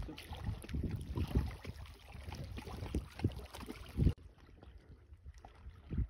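Small river waves lapping and slapping irregularly, with wind rumble on the microphone. There is one louder slap about four seconds in, after which the sound drops quieter.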